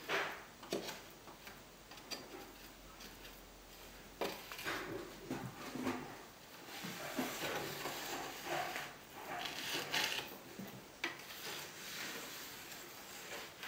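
Narrow trowel scraping and clicking against gypsum imitation-stone tiles while smoothing fresh grout joints, in short irregular strokes.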